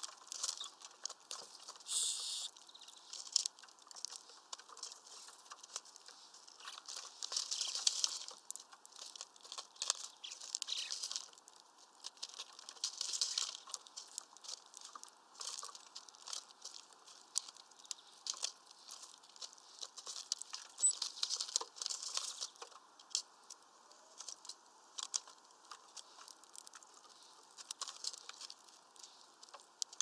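Small birds feeding at a mesh peanut feeder: irregular pecking clicks and scrabbling at the net, with short rustling bursts from wings and feet.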